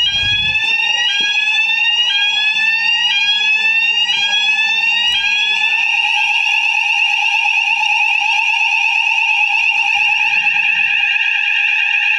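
Electronic fire alarm sounders sounding during a test. A tone sweeps upward about once a second until roughly halfway through, then gives way to a steady continuous tone.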